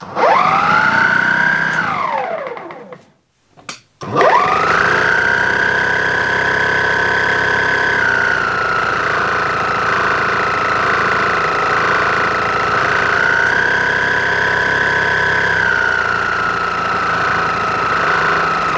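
Einhell GE-ST 36/40 Li E-Solo cordless brushless snow blower running free with no snow: the motor and auger spin up with a rising whine, run about two seconds and wind down. After a short pause with a click, it starts again about four seconds in and runs steadily with a high whine that dips and rises slightly in pitch, winding down at the very end.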